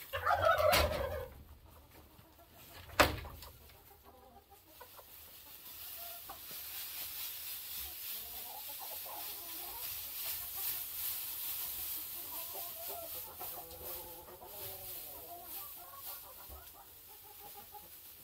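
Hens clucking in a coop while dry straw rustles and crackles as it is carried in and spread. There is a loud burst of sound in the first second and a sharp knock about three seconds in.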